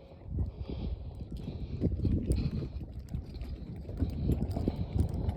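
Irregular low thumps and rumble of choppy water slapping the hull of a small sailboat, a Vagabond 17, under way in a stiff breeze.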